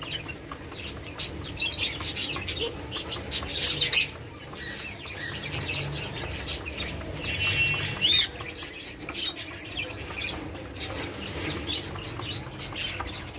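Caged doves pecking grain from plastic feed trays: a rapid, irregular clicking of beaks on seed and plastic, with a few high chirps from other birds in the middle.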